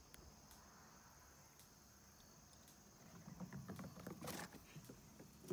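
Quiet background of crickets chirring steadily. About three seconds in, a couple of seconds of scuffing and knocking on the wooden deck boards, with one sharp rustle in the middle of it.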